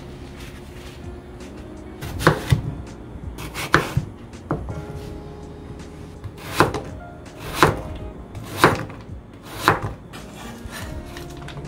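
Kitchen knife chopping on a cutting board: single strikes, about one a second near the end, over soft background music.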